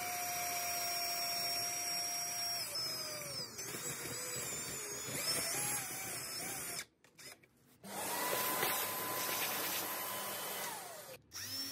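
Cordless drill with a 10mm Forstner bit boring into hardwood. Its motor whines steadily, slows, then wavers under load as the bit cuts. After a short break about seven seconds in, a vacuum hose runs steadily, sucking up the wood chips, and winds down near the end.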